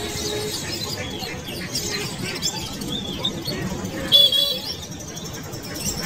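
Small cage birds chirping and twittering over steady background noise, with one louder call about four seconds in.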